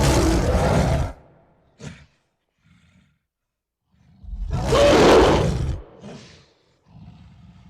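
Gorilla roaring: a loud roar of about a second at the start, a short burst, then a second, louder roar about four seconds in, followed by low, quieter grunts near the end.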